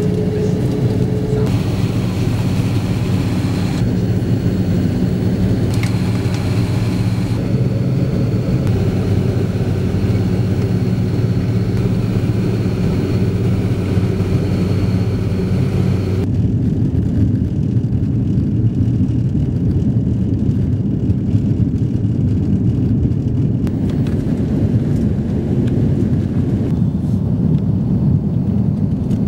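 Airliner cabin noise during takeoff and climb: jet engines running at high power with a steady low rumble and hum. The hiss above the rumble changes abruptly a few times and mostly drops away about sixteen seconds in.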